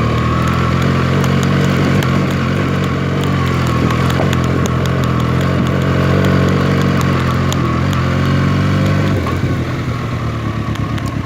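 Benelli TNT 300's parallel-twin engine running steadily while riding, easing off about nine seconds in.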